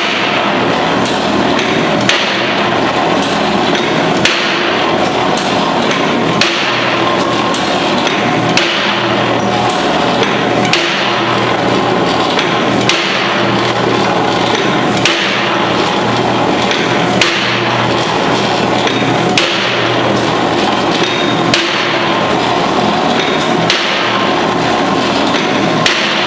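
Salt tablet press machine running: a steady mechanical clatter and hum with a sharp knock about once a second as it presses.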